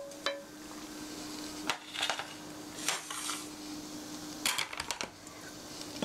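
Cooking utensils clinking and scraping against pans and dishes: several sharp clicks and a few short scrapes, over a steady low hum.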